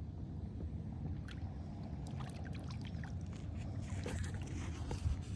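Steady low wind rumble on the microphone, with small clicks and rustles of handling that start about a second in and grow more frequent.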